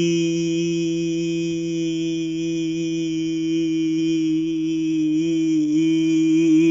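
A young man's voice holding out the 'boy' of a 'yeah boy' on a single breath, one long note at a steady pitch that starts to waver and dip a little about five seconds in, as his breath runs low.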